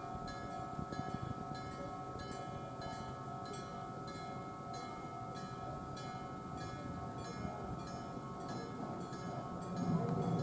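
Japanese railway level-crossing warning sounding: an electric bell (denshō type) striking in an even rhythm over the steady tone of an electronic alarm. It signals that a train is coming. Near the end the low rumble of an approaching Randen tram rises beneath it.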